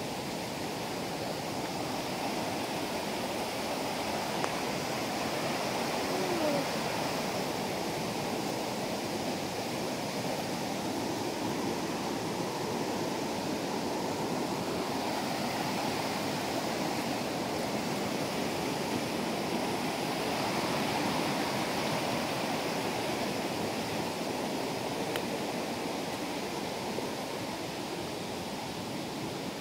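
Rushing creek water pouring over rocks and small cascades: a steady, even rush.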